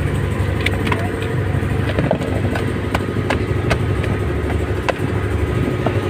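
Fishing boat's engine running steadily, with about ten sharp taps and slaps over it as a freshly landed mahi-mahi flaps on the deck.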